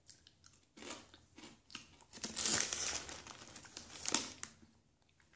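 Thin, crispy potato sticks being bitten and chewed: a run of irregular dry crunches that thin out near the end.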